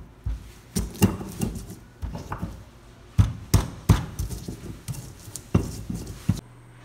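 Irregular thuds and knocks of garlic and coarse peppercorns being crushed or chopped by hand, about a dozen uneven strikes, breaking off suddenly near the end.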